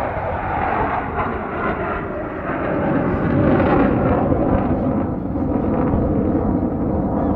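Fighter jet flying past, a continuous rushing engine noise that swells about three seconds in and stays loud.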